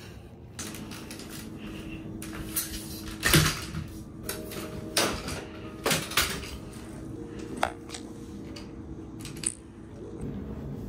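Clicks, rattles and knocks of a lightweight aluminium camera tripod being carried and handled, with the loudest knock about three and a half seconds in, over a faint steady hum.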